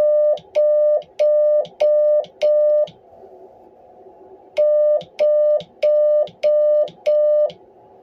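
Morse code side tone from an ICOM IC-705 keyed by hand on a Bencher straight key: two runs of five long steady beeps, each run the number 0 (dah-dah-dah-dah-dah), with a pause of nearly two seconds between them. Each beep starts and stops with a small click.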